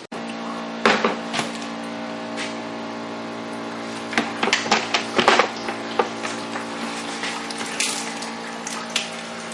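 A machine hums steadily with a low pitched drone, over water sounds. Sharp knocks and clatters come about a second in and again in a cluster from about four to six seconds in.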